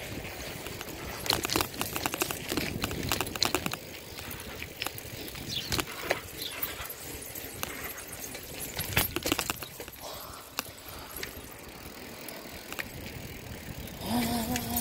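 Bicycle being ridden over pavement and tarmac: tyres rolling, with a run of rattling clicks from the bike, thickest in the first few seconds and again about nine seconds in.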